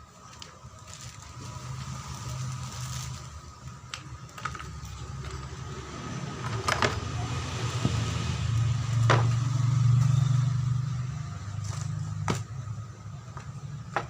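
A few sharp metallic clicks and knocks as an automotive air-conditioning compressor is taken apart with hand tools, over a steady low hum that swells and fades.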